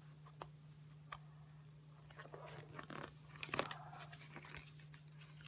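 Packaging being torn and crinkled open by hand, with scattered crackles and a louder rustling tear about three and a half seconds in. A faint steady hum runs underneath.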